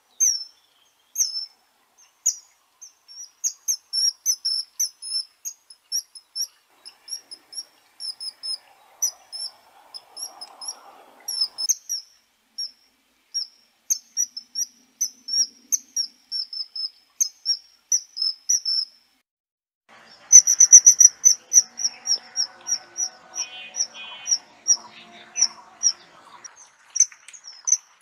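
Kingfisher calling: a long run of short, high-pitched piping notes, several a second. The run breaks off for about a second two-thirds of the way through, then resumes louder and faster.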